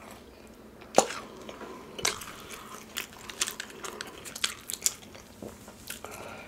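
Close-miked chewing of Indian food, with many short wet mouth clicks and smacks; the loudest is a sharp bite about a second in.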